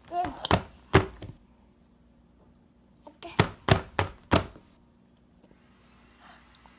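A series of sharp knocks on a hard surface, in two clusters: about four near the start and four more, roughly three a second, about three and a half seconds in.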